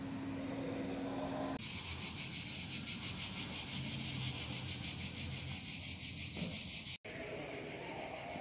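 Shrill chorus of insects, loud and pulsing several times a second, starting suddenly and cutting off abruptly about seven seconds in; a fainter trace of it is heard before and after.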